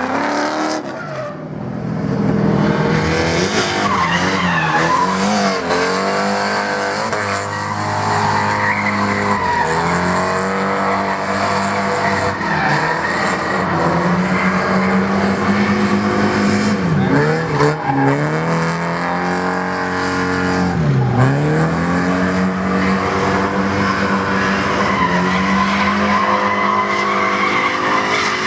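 A drift car's engine held at high revs with tyres skidding and squealing through a drift run. The revs dip sharply and climb back several times, most clearly about 21 seconds in.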